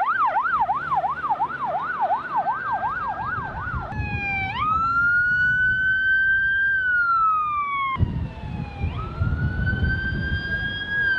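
Emergency vehicle siren: a fast yelp, about three cycles a second, for the first four seconds. After a cut it changes to a slow wail that rises and falls, with another break about eight seconds in.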